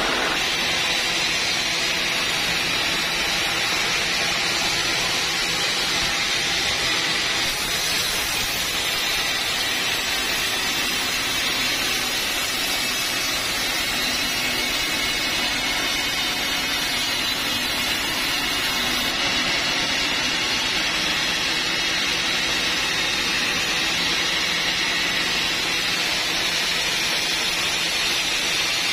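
Vertical band sawmill running steadily as its blade saws along a large teak log. For about ten seconds in the middle a brighter, higher hiss joins the machine noise.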